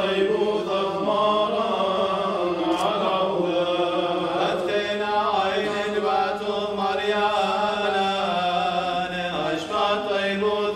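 Male clergy chanting the Assyrian Church of the East consecration liturgy: a continuous melodic chant on long held notes that shift in pitch every second or so.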